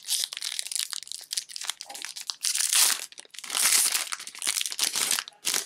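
Disney Lorcana booster pack's foil wrapper crinkling and tearing as the pack is opened, with the loudest crackling about two and a half, three and a half and five seconds in.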